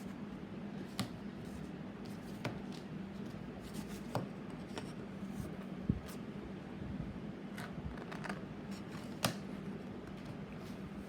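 Sparse, irregular small clicks and knocks of hand tools and small metal parts being handled on a workbench, over a steady low hum.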